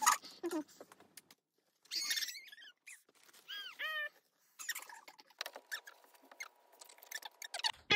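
Rustling and crinkling of tissue paper as a new pair of sneakers is unwrapped and handled, with a quick run of short high squeaks about halfway through.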